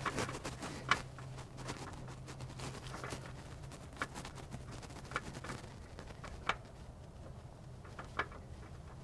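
Faint clicks and light taps as a crankshaft balancer pulley is worked by hand onto the crankshaft snout, turned to line up its flats. A low steady hum runs under the first half and then fades out.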